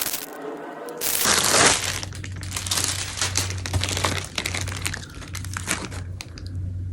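Packaging being opened by hand, crinkling and rustling in irregular crackles, loudest in a burst about a second in. A low steady hum sits underneath.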